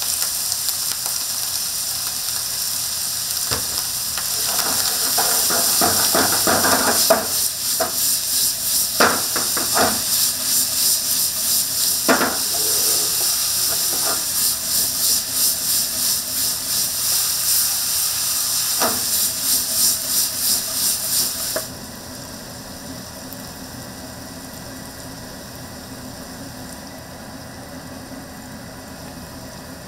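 Food sizzling in a hot frying pan while it is stirred, with a rhythmic scraping about twice a second and several sharp clicks of a utensil against the pan. The sizzling cuts off abruptly about 22 seconds in, leaving a steady low hum.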